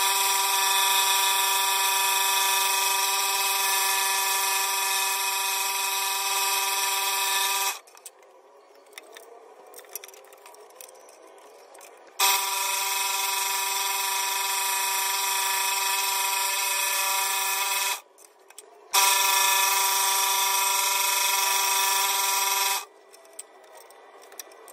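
Scroll saw running with a steady, high-pitched buzz as its blade cuts a thin wooden owl pattern. The buzz comes in three stretches, each breaking off abruptly, with quieter gaps of light clicks between them.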